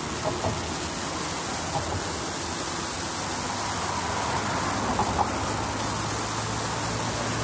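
A steady rushing noise, even and unbroken, with no clear pitch.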